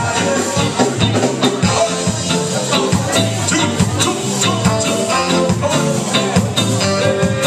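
Ska band playing live: trombone and saxophone over electric guitar, bass, keyboard and drums keeping a regular beat.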